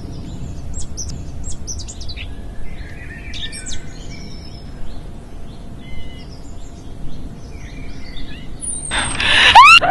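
Woodland birds chirping and singing over a steady low outdoor rumble. Near the end a loud sudden sound cuts in, its pitch falling sharply.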